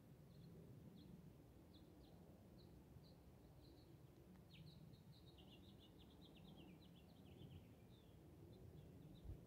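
Near silence with faint outdoor ambience: a small bird chirping in short high notes, with a quick run of stepped, slightly falling notes about halfway through.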